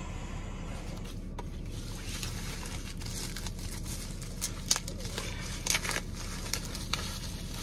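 Plastic bubble wrap crinkling and crackling in irregular snaps as a hand handles it and pulls a box out of it, over a steady low hum.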